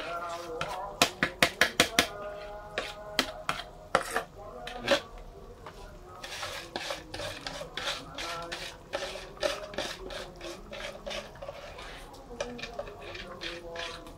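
A plastic scoop knocking and scraping against a metal cooking pot as dry rice is tipped into a pot of broth. There is a quick run of sharp clicks in the first two seconds, then scattered ones.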